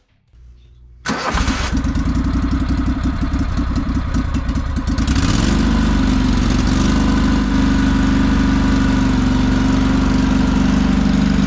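Small engine of a Craftsman riding-mower race mower starting about a second in and running with a rapid, even firing beat. Around five seconds in it revs up and then holds a steady higher speed.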